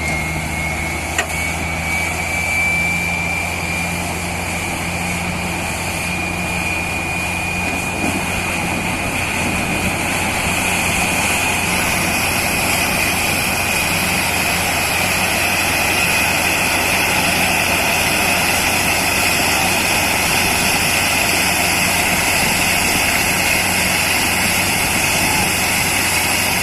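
Borewell drilling rig and its air compressor running steadily, a deep engine drone under a high whine that slowly rises in pitch. A rushing hiss grows louder about halfway through.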